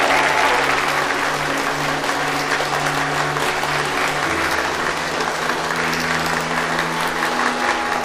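A large audience applauding, a dense steady clatter of many hands clapping, over background music with held low notes that change about halfway through.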